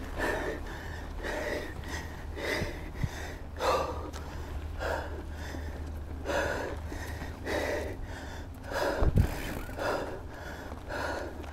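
A mountain biker's heavy, quick breathing from the effort of pedalling uphill, about one to two breaths a second, over a low steady rumble.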